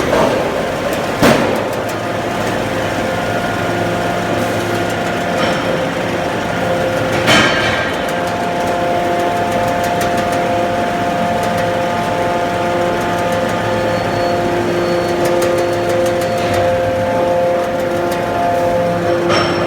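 Induction heating furnace for billet forging running, a steady hum made of several held tones over machine noise. Two sharp knocks come about a second in and about seven seconds in, with faint clicks scattered between.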